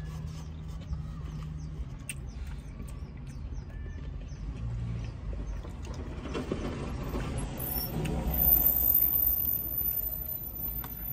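A large delivery box truck passing close outside the car, heard from inside the cabin, swelling to its loudest about eight seconds in and then fading, over a steady low rumble.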